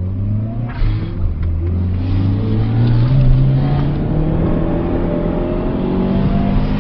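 Toyota Starlet turbo's four-cylinder engine, fitted with an aftermarket back box and air filter, heard from inside the car, pulling hard under acceleration with its pitch climbing steadily.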